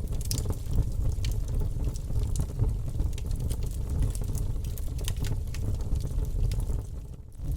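Campfire crackling: burning wood gives many quick, irregular pops and snaps over a steady low rumble. The sound briefly drops away near the end.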